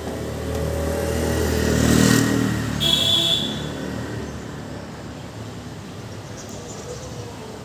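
A motor vehicle passing on the street, its engine growing louder to a peak about two seconds in and then fading away. A short high-pitched tone with a burst of hiss sounds about three seconds in.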